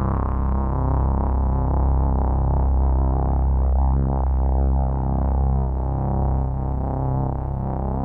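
Sequential Prophet 12 synthesizer playing a held chord, with a deep, steady bass note under slowly wavering upper tones.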